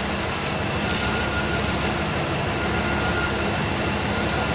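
Pickup truck engine idling steadily, heard close at the open hood, with a faint thin whine over it. It is running on a hydrogen-gas feed from an electrolysis setup while the gasoline supply is being shut off.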